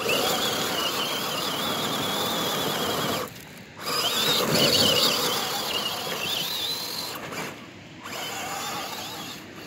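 Electric motor and gear drivetrain of a 1/10-scale RC rock crawler whining under throttle as it climbs loose gravel, the pitch wavering with load. It stops for a moment about three seconds in, then runs again, climbing a little in pitch before easing off and going quieter in the last few seconds.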